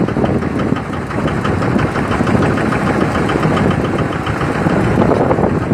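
Boat engine idling steadily, a dense, even mechanical drone.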